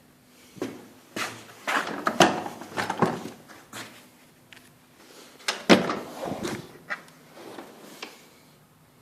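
Handling noise: a run of knocks, clatters and scrapes in two bursts, one about a second in and another past the middle, with no motor running.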